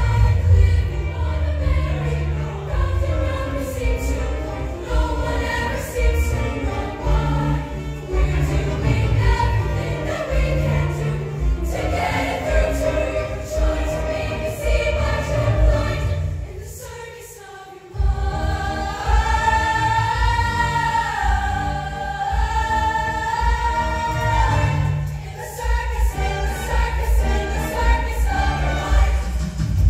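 High-school show choir singing with its live backing band over a steady bass and drum beat. About two-thirds through, the music drops to a brief quieter moment, then comes back with long held vocal notes.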